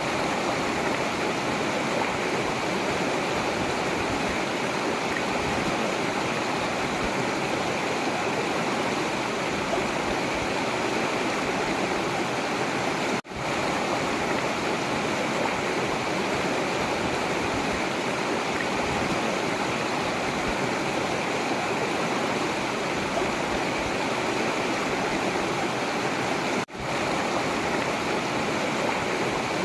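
River water running steadily: a continuous, even rush of flowing water, dropping out for an instant twice.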